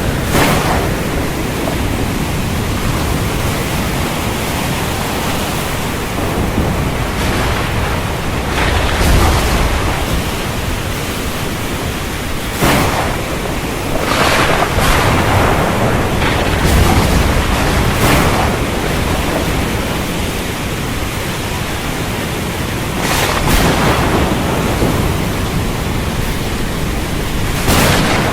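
Storm over the sea: a steady, loud rush of wind and surf, broken every few seconds by brief sharp cracks, with a deeper rumble swelling twice in the middle.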